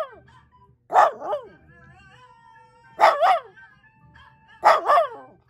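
A dog barking in short, loud barks: one about a second in, then two quick doubles around three seconds and near the end, each bark trailing off in a falling tone, over faint background music.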